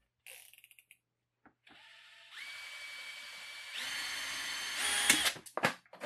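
Cordless drill spinning the input shaft of a 3D-printed fluid coupler under load, its motor whine stepping up in pitch twice as the trigger is squeezed harder. Near the end there is a loud crack and a few sharp knocks as the weighted test arm gives way.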